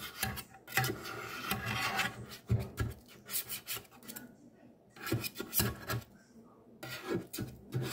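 A blade scraping along the inside walls of a stainless steel cake pan to loosen a steamed banana sponge cake from the sides, in repeated short strokes with brief pauses.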